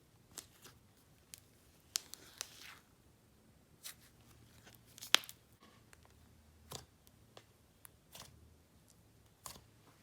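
Slime being pressed and stretched by hand, making scattered sharp clicks, pops and short crackly tearing sounds; the loudest pop comes about five seconds in.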